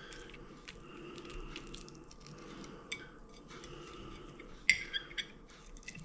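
Quiet sounds of someone eating and handling fish fingers at a plate: low chewing and scattered light clicks, with two sharper clicks near the end.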